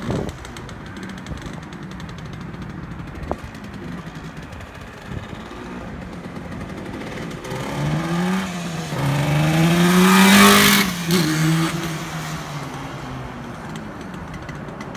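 1974 Yamaha RD350's two-stroke twin, faint at a distance at first, then revving up as the motorcycle rides toward and close past, its pitch climbing, dipping and climbing again to the loudest point about ten seconds in. The pitch drops sharply as it goes by, and the engine fades as it rides away.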